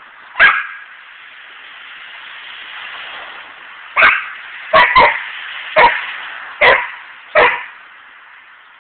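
A dog barking at a squirrel: one bark, then after a pause of about three seconds a run of six barks in quick succession.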